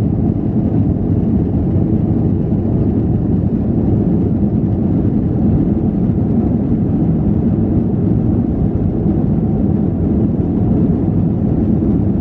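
Steady low rumble inside the cabin of an Airbus A321-211 in flight: its CFM56 turbofan engines and the airflow over the fuselage, heard from a window seat at the rear. The noise holds an even level throughout.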